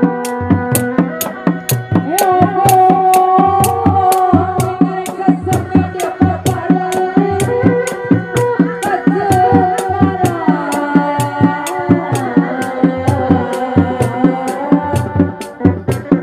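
Sundanese reak ensemble playing: dogdog frame drums beat an interlocking repeating pattern, with a sharp stroke about three times a second and a held, bending melody line over the top.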